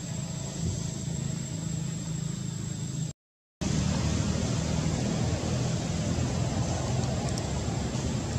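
Steady low rumble of road traffic, with a thin high whine over it. The sound cuts out completely for about half a second around three seconds in, then returns a little louder without the whine.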